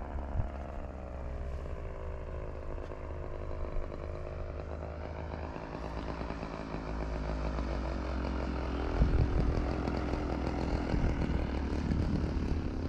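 Hangar 9 Ultra Stick radio-controlled model airplane's engine running in flight, a steady buzzing drone whose pitch glides during the first two seconds. A low rumble runs underneath, with a few louder low bumps about nine seconds in.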